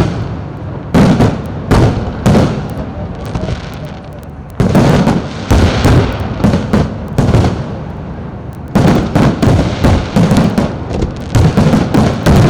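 Fireworks exploding overhead: repeated sharp bangs, each trailing off in echo and crackle, with a short lull midway and a dense run of bangs near the end.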